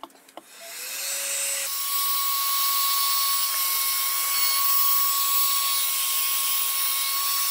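Electric heat gun running, shrinking heat-shrink tubing over a soldered wire splice. It starts with a rising whine, steps up to a higher steady whine about two seconds in, and keeps going with a strong hiss of blown air.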